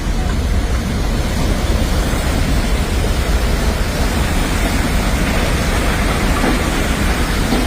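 Floodwater after a cloudburst rushing past: a loud, steady wash of water noise, heavy in the low end, with no break.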